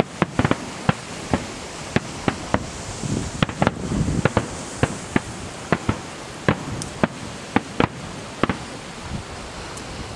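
Fireworks shells bursting: a rapid, irregular series of sharp bangs, about two a second, with a deeper rumble about four seconds in.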